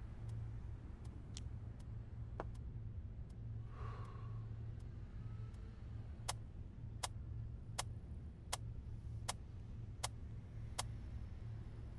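Wall clock ticking, about four sharp ticks every three seconds, coming in loud about six seconds in over a steady low hum. A brief soft hiss comes about four seconds in.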